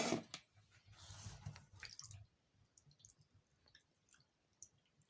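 Milk being drained off soaked raw liver: a brief loud splash at the start and a soft pouring sound, then scattered faint drips and small wet clicks.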